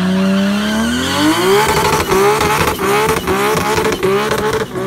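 A BMW E30's swapped-in Toyota Supra straight-six engine revving hard during a burnout as the rear tyres spin in clouds of smoke. The revs climb steadily over the first second and a half, then rise and fall sharply about twice a second.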